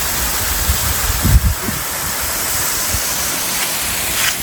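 Steady rush of a waterfall, with a brief low buffet of wind on the microphone about a second and a half in.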